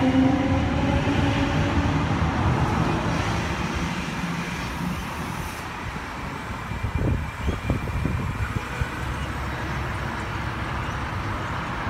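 Sydney Trains electric suburban train pulling away from the platform. Its traction motors whine, rising slightly in pitch as it accelerates, over a rumble of wheels that fades as it draws away, with a few sharp knocks about seven seconds in.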